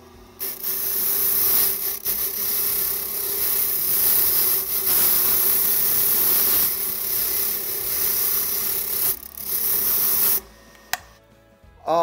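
Motorised deburring brush running with a freshly cut Sargent key held against it to clean off the burrs: a steady motor hum under a harsh brushing hiss. It starts about half a second in and stops shortly before the end.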